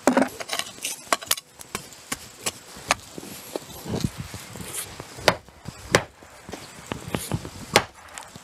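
A heavy wooden mallet made from a log section knocks on a wooden block laid on freshly filled soil and rubble, tamping the fill down under a foundation stone. Several dull wooden knocks about a second apart come in the second half, after lighter wooden clacks while the block is set down.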